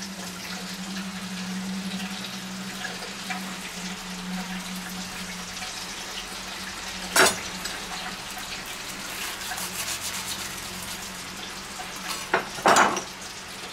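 Crackling and rustling of crispy cornflake-breaded fried chicken being handled and pressed onto a sandwich roll, over a steady low hum. A sharp knock about halfway through and two more close together near the end come from a kitchen knife being taken up and used on the board.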